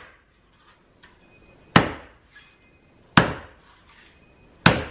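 A large knife striking the shell of a dehusked young coconut three times, about a second and a half apart, each a sharp crack with a short ring: hacking at the top to crack it open.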